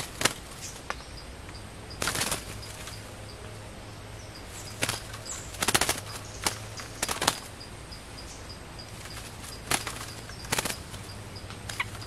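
A wild bird fluttering and scuffling against a hanging bird cage in short bursts of wingbeats as it fights the caged decoy bird, with about eight separate bursts spread across the seconds.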